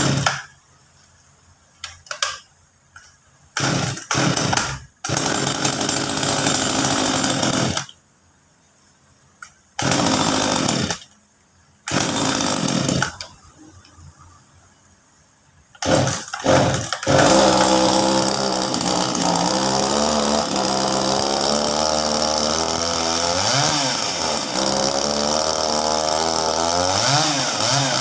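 Small 25 cc two-stroke chainsaw (Topwe CN-25) being pull-started on its freshly fitted spark plug. It fires and runs for a few seconds and dies several times, then catches a little over halfway through and keeps running, revved up and back down twice near the end.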